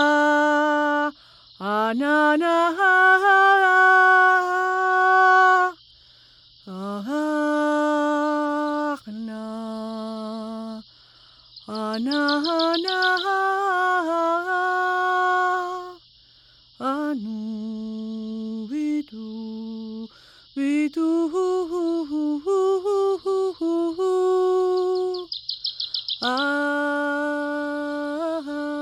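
Woman's voice toning: a series of long, wordless held vowel tones, each often sliding up into the note and then held for one to four seconds, moving between several pitches with brief pauses between them.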